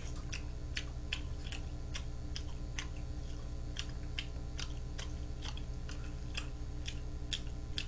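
Close-miked chewing of food: a string of small, sharp mouth clicks, unevenly spaced at about two to three a second, over a steady low hum.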